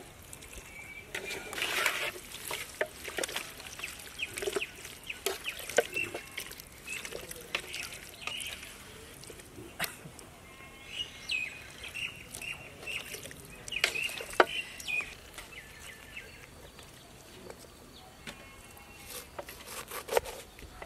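Wet squelching and clicking of a hand mixing marinated chicken legs in a large aluminium pot, with irregular sharp clicks throughout. Faint birds chirp in the background now and then.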